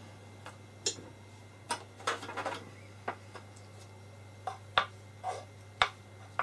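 Scattered small clicks and taps of close-up handling as a paintbrush and gloved hands work on a silicone doll over a wooden board, with two sharper clicks near the end. A steady low hum runs underneath.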